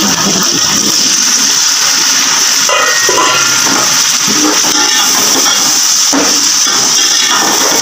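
Chopped tomatoes hitting hot oil in a steel pot of browned onions and chicken pieces, sizzling loudly and steadily while they are stirred with a steel ladle.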